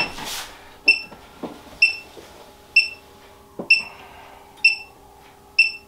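Reptile egg incubator's thermostat alarm beeping, a short high beep about once a second, sounding because the incubator's temperature has dropped below its set point. A couple of soft knocks and a faint steady hum lie underneath.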